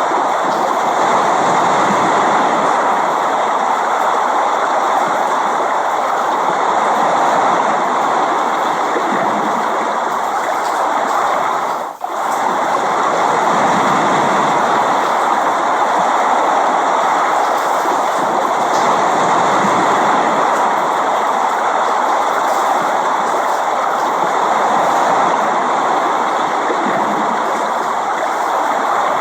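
Steady rain, an even hiss, briefly dropping away about twelve seconds in.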